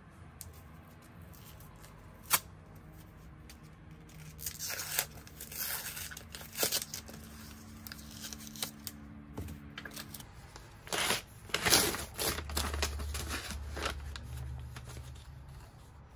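Tape and paper wrapping being peeled and torn off a rolled desk mat, in several short tearing bursts, the loudest about eleven to twelve seconds in, with a sharp tick about two seconds in.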